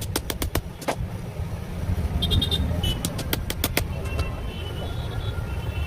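E-rickshaw running with a steady low rumble, broken by irregular sharp clicks that cluster about two to four seconds in.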